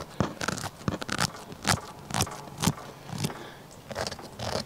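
A fingernail scratching and clicking across a gar's hard, armor-like ganoid scales, right at the microphone: a run of sharp, irregular clicks and scrapes.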